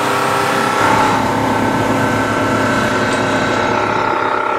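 Outboard motor running steadily at speed on a deck boat underway, heard from beside the motor at the stern, under a dense rush of wake water and wind.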